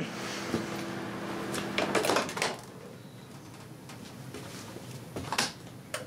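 Panasonic microwave oven stopping: its loud hum drops away, a softer fan hum runs on, then the door is popped open with a few sharp latch clicks about two seconds in and the hum cuts out. A couple more knocks come near the end.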